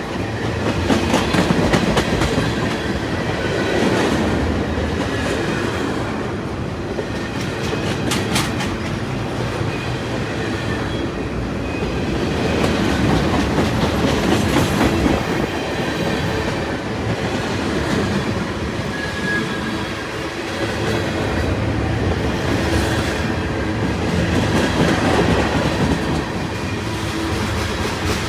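Freight train cars rolling past at close range, the wheels clicking steadily over the rail joints.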